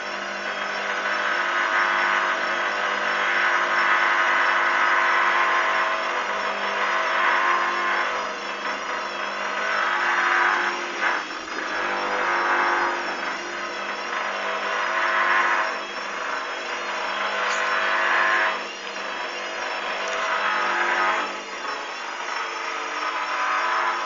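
Hoover Dynamic front-loading washing machine running its drum motor, a steady whine and churn that swells up and drops back every few seconds as the drum is driven with wet laundry.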